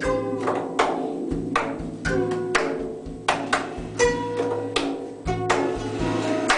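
Background music of plucked strings, guitar-like, with a sharp struck attack every half second or so and each note ringing out.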